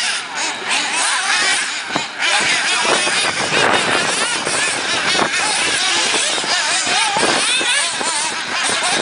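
Several 1/8-scale nitro RC buggies' small glow engines buzzing at a high pitch, each rising and falling again and again as the cars rev and back off through the corners.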